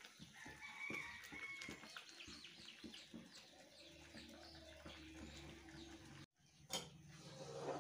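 Faint bird calls, short chirps, over low room noise, with a sharp click near the end.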